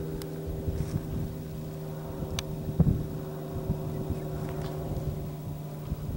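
An engine running steadily with an even low hum, wind buffeting the microphone. A sharp click and then a knock come between two and three seconds in.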